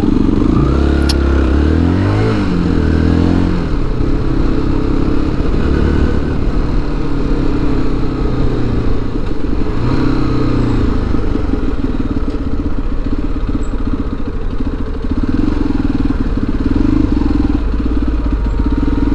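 Motorcycle engine running as the bike is ridden. Its pitch rises and falls with throttle and gear changes in the first few seconds and again about ten seconds in.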